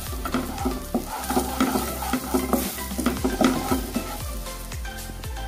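A spoon stirring and scraping coriander powder through melted butter in a frying pan, with repeated clicks of the spoon against the pan over a gentle sizzle of the butter on a low flame.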